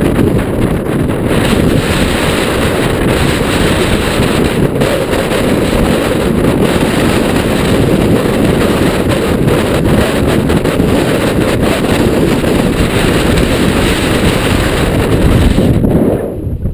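Strong wind buffeting the microphone, a loud, steady rumble, with scattered clicks and rattles from the mountain bike on rough trail. The noise drops off sharply near the end.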